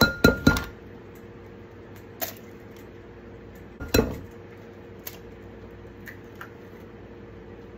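An eggshell knocked against the rim of a glass mixing bowl to crack it: a quick run of sharp knocks with a brief glassy ring at the start, a single sharp knock about four seconds in, and a few lighter clicks in between and after as the shell is worked open.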